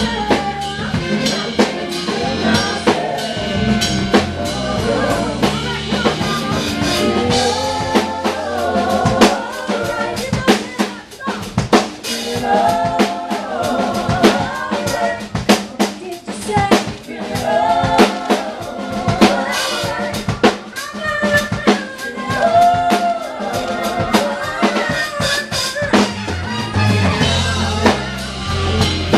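A band playing rock music, the drum kit strong throughout with steady snare and bass-drum hits under a melody line.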